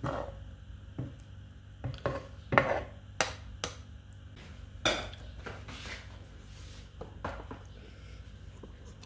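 A spoon clinking and knocking against a plate, about eight irregular knocks in the first six seconds, the loudest about two and a half seconds in.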